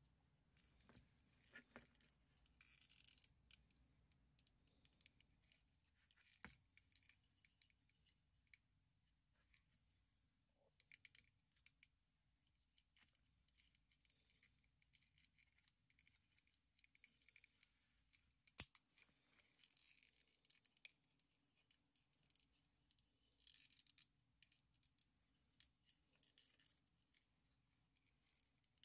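Quiet handling of small plastic parts of a disassembled electric tachometer: scattered faint clicks, taps and rustles, with one sharp click about two-thirds of the way through.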